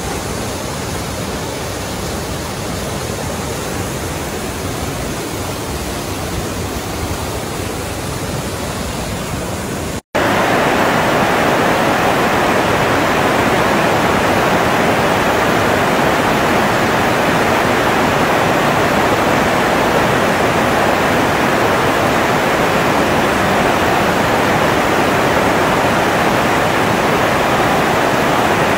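Rushing white water of a mountain stream cascading over boulders: a steady, even rush of water. About ten seconds in it drops out for an instant and comes back louder and hissier.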